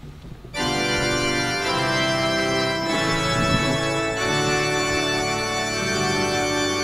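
Yamaha electronic keyboard played on an organ voice: sustained chords that start about half a second in and change every second or so.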